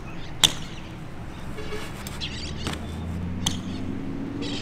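BMX bike coming down from a 180 trick onto concrete: a single sharp clack about half a second in, followed by a few lighter knocks as the bike rolls on. A low steady hum, with a faint rising tone near the end, runs underneath.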